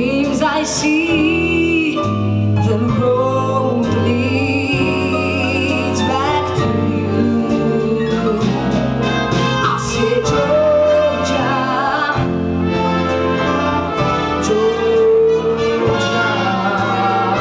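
A woman singing live into a microphone with a small band on keyboards, holding long notes with vibrato.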